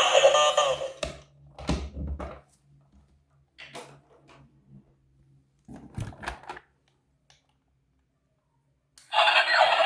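A few short clusters of clicks and knocks from plastic toys and packaging being handled, between background music that stops about a second in and starts again near the end.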